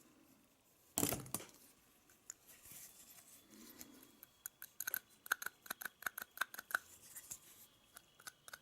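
Small metal tools clicking and scraping against the parts of a seized two-stroke RC nitro engine as the stuck piston is worked loose. There is one louder rustling scrape about a second in, then a run of quick, sharp metallic clicks through the second half.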